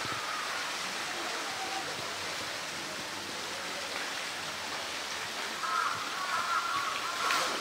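Steady rush of flowing water from the enclosure's pool, with visitors talking faintly in the background, their voices growing a little louder near the end.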